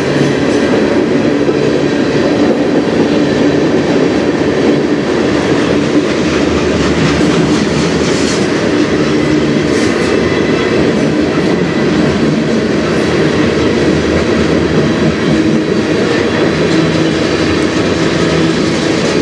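A long freight train's cars rolling past at speed: a steady rumble and clatter of steel wheels on the rails.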